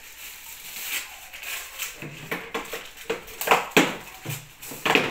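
Plastic bag and paper wrapping crinkling and rustling as packages are unwrapped by hand, in short irregular strokes that grow busier and louder from about two seconds in.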